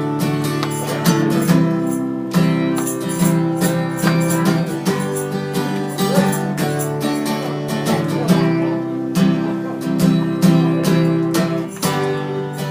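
Acoustic guitar strumming an instrumental passage of a sing-along song, with hand percussion such as drum and tambourine played along in the strokes.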